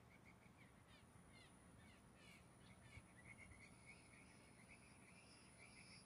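Blue jays giving soft courtship calls: faint runs of quick repeated notes mixed with several short downward-sliding whistles.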